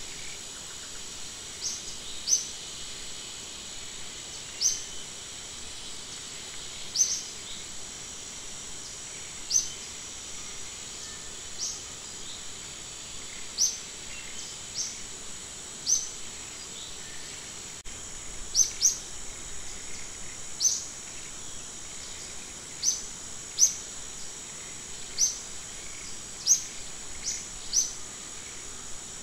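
Steady high-pitched insect drone, with a bird's short, high chirps repeating every one to two seconds.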